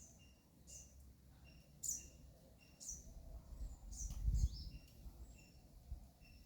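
Small birds chirping, short high notes repeated about once a second, with a gust of wind rumbling on the microphone about four seconds in.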